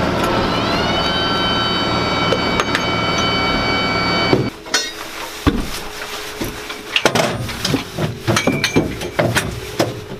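Running machinery of an M109A7 Paladin heard from inside the crew compartment: a steady mechanical noise with a whine that rises in pitch about half a second in and then holds steady. About four and a half seconds in it cuts off abruptly, and what follows is quieter, with scattered sharp metallic clanks and knocks.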